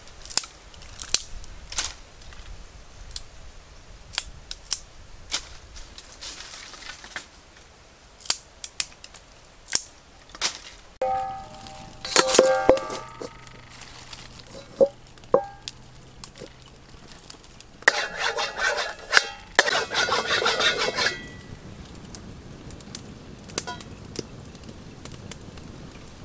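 Small river clam shells clicking and clattering against one another as they are handled, in scattered sharp clicks. Twice in the middle comes a longer burst of pitched chirping.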